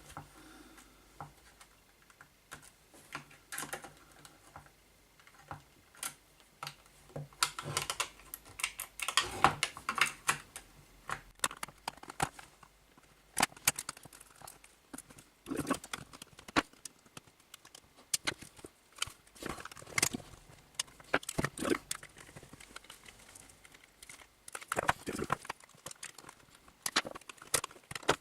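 Irregular clicks, knocks and scrapes of hands and tools working at a Dyson V6 vacuum's plastic motor housing, prying at the tightly pressed-in motor, with busier clusters of clatter here and there.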